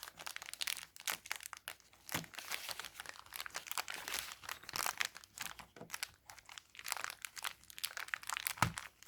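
Plastic packaging crinkling and rustling in the hands, with many small irregular crackles and clicks as the blue chair-assembly screws are taken out, and a soft knock near the end.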